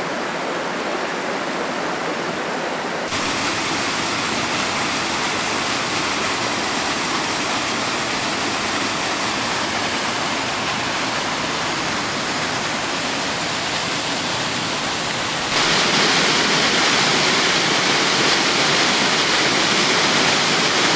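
Steady rush of white water from a rocky rainforest stream pouring over boulders and a waterfall. It steps louder twice, about three seconds in and again about fifteen seconds in.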